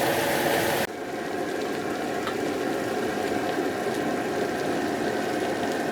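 Meat sizzling on a griddle, a steady hiss with a few faint pops. The sound changes abruptly about a second in.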